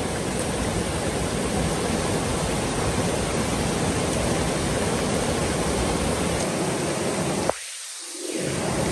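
Swollen river rushing through white-water rapids: a loud, steady roar of water. About seven and a half seconds in, a single click, then the low part of the roar drops out for under a second before it returns.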